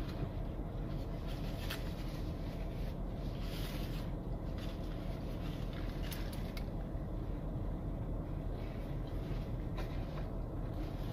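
Steady low hum inside a car's cabin, with short crinkles of a paper burger wrapper every few seconds as the burger is handled and bitten.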